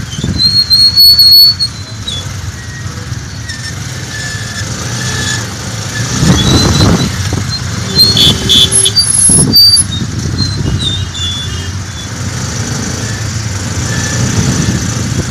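Engine of a motorcycle-and-sidecar tricycle running as it rides through dense city traffic, over the rumble of the cars and motorcycles around it. Short high-pitched squeals cut through about a second in and again about eight seconds in, where it is loudest.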